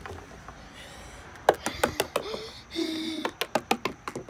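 Small plastic Littlest Pet Shop figures knocked against wooden deck boards as they are hopped along: a quick run of about ten sharp taps, starting about a second and a half in.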